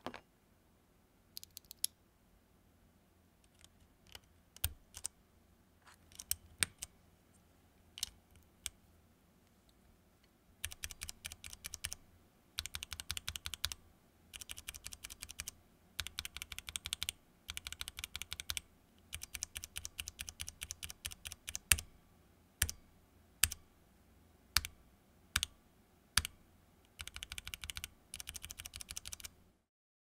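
Keystrokes on a Ducky One 3 Mini 60% mechanical keyboard, a side-by-side sound test of two tactile switches: a Cherry MX Clear and a Pulsar Black Hole. The first ten seconds hold slow single presses. Then come quick runs of rapid presses with short pauses, a few single harder presses, and a last fast run near the end. The Cherry MX Clear's ping is a fault of the switch itself, not the board.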